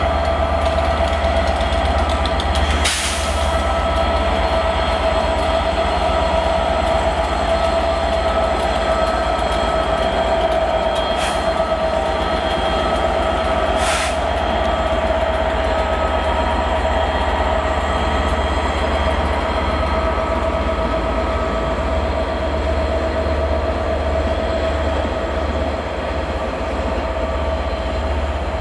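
Class 67 diesel-electric locomotive with its two-stroke V12 engine running under power as it hauls a coach train past: a steady low rumble under a held whine, with a few sharp clicks.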